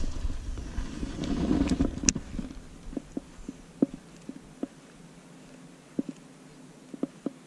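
Casting with a baitcasting rod and reel: low rushing handling noise as the rod swings through the cast and the line pays out, with one sharp click about two seconds in. This is followed by scattered soft ticks and knocks from the rod and reel as the walk-the-dog topwater lure is twitched back.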